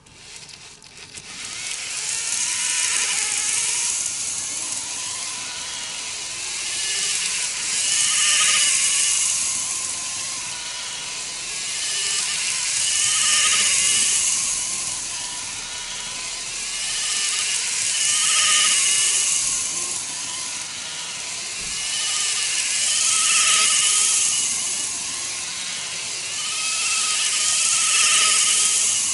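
N-gauge model train running on track, its KATO motor unit whirring with wheels hissing and squealing on the rails. The sound starts about a second in and swells and fades about every five seconds as the train comes round past the microphone.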